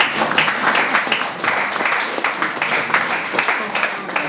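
Small audience applauding, a dense run of hand claps.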